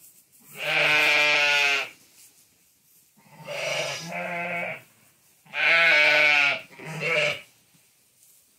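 Katahdin sheep bleating, about five calls each roughly a second long, with short pauses between them; the loudest come about a second in and about six seconds in.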